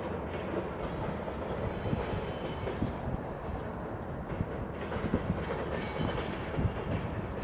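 Diesel-hauled freight train rolling past: a steady rumble of wheels on rail with scattered clicks over the rail joints.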